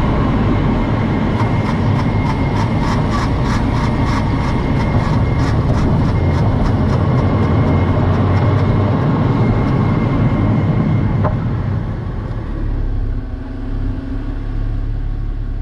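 A car's disc brakes with rust built up on the rotors from long sitting, squeaking while the car is driven: road and tyre rumble with a thin steady high squeal and a fast run of rhythmic ticks. About twelve seconds in the car slows to a stop and the noise drops to a quiet engine idle.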